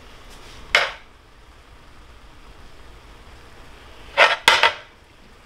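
Kitchenware knocks while a pot of peas is being seasoned: one sharp knock about a second in, then three quick knocks near the end.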